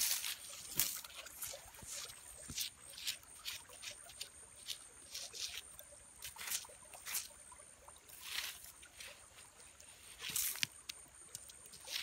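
Dry twigs, leaves and ash rustling and crackling in short irregular bursts as a stick is worked through a burnt-out campfire, with a faint steady high tone underneath.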